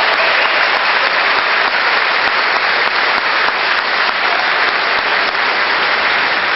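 An audience applauding steadily, a dense clapping that holds at one level throughout.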